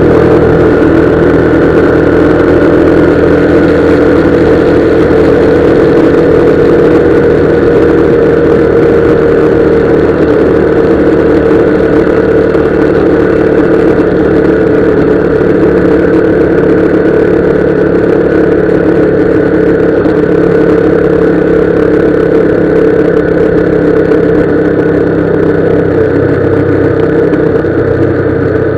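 Motorcycle engine running at a steady cruising speed, its note easing slightly lower, under a constant rush of road and wind noise.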